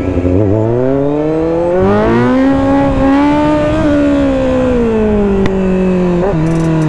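Kawasaki Z900 motorcycle's inline-four engine revving hard: the revs climb steeply over about two seconds, hold high, then fall away slowly.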